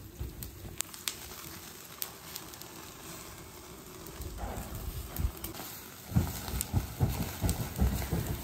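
Skewered meat kebabs sizzling over a charcoal grill, with sharp scattered crackles and pops. From about six seconds in, louder irregular low thumps and rumbles join.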